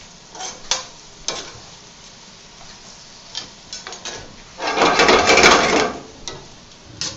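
A spoon clicking and scraping against a cast iron skillet as vegetables are stirred over high heat, then a loud burst of sizzling for a little over a second about five seconds in.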